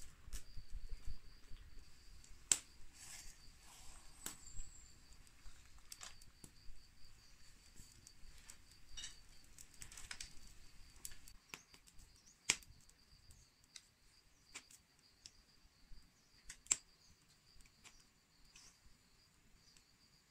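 An insect trilling steadily, high-pitched and faint, with a scattering of sharp clicks and snaps through it, the loudest about two and a half, twelve and a half and seventeen seconds in.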